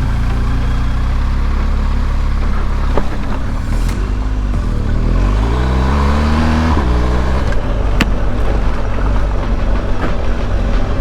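BMW R1250 GS Adventure's boxer-twin engine running under way with a low rumble. Its pitch climbs as the bike accelerates for a few seconds in the middle, then drops abruptly, as at a gear change.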